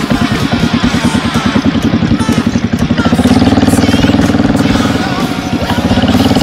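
Single-cylinder Yamaha sport ATV engine running under throttle while riding, its note rising about three seconds in, easing off a little past five seconds and picking up again near the end.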